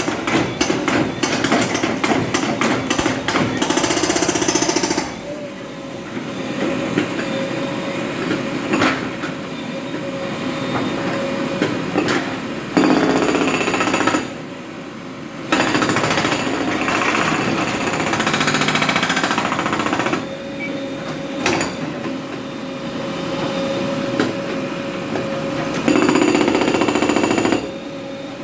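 JCB 3DX backhoe loader working a road surface: several loud bursts of rapid, jackhammer-like hammering alternate with quieter stretches where the machine runs with a steady whine.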